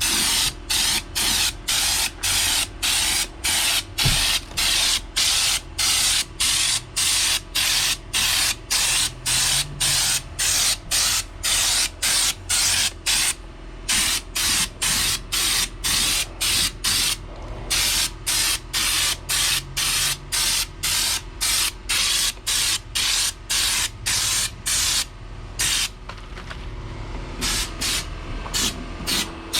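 Air-powered spray gun hissing in short, evenly repeated bursts, about two a second, with a faint steady hum underneath.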